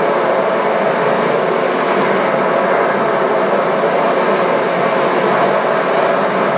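Ukraina-5 16 mm film projector running, its film-transport mechanism making a steady, fast mechanical clatter.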